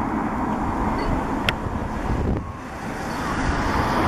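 Boeing 747-400's four Pratt & Whitney turbofan engines on final approach, a steady jet rumble and hiss, with wind buffeting the microphone.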